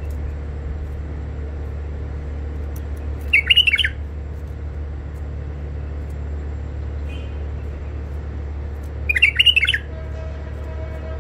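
White-eared bulbul giving two short bursts of quick warbling call notes, about six seconds apart, over a steady low hum.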